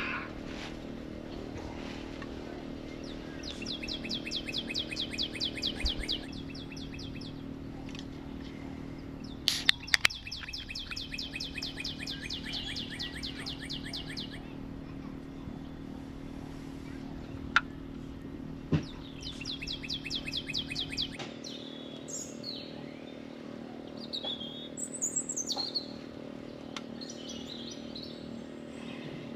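A bird singing a long, rapid, even trill three times, each lasting a few seconds, with other birds chirping in varied short calls near the end. A steady low hum runs underneath, and a few sharp clicks sound about ten seconds in.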